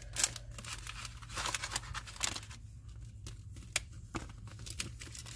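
Clear stamp set in its plastic sleeve crinkling and crackling as it is handled. The crackles come thick for the first couple of seconds, then thin out to scattered clicks.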